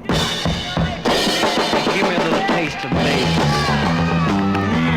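1960s garage rock record: a drum kit playing a fill of snare and bass drum, with the full band and a steady bass line coming back in about three seconds in.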